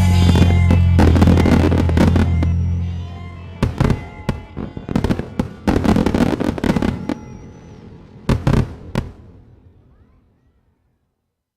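A pop song's final held chord fades out, followed by a string of fireworks bangs and crackles with short whistles, thinning out over several seconds.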